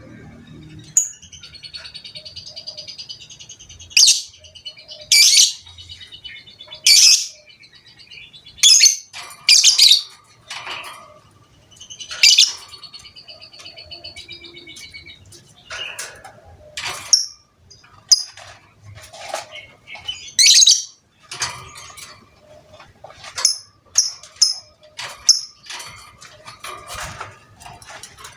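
Lovebird singing: a fast, rattling high chatter broken by many loud, sharp shrieks every second or two.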